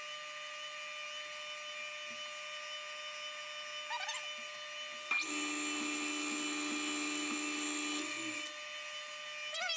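Bridgeport milling machine's spindle running with a steady hum and whine while a drill bit in its chuck drills the bar stock: about five seconds in the cut starts with a louder steady pitched tone lasting about three seconds, then fades as the bit is backed out. Brief squeaks come just before the cut and near the end.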